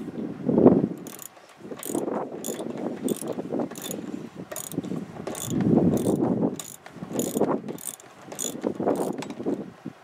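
Socket ratchet wrench clicking in short bursts about twice a second as a seat belt anchor bolt is backed out, with low knocks and rustling from handling the wrench.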